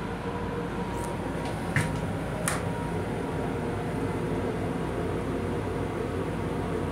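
Steady running noise of a Metro-North M7 electric multiple-unit railcar heard inside its small restroom: a low rumble with a steady hum. A few sharp clicks come between about one and two and a half seconds in.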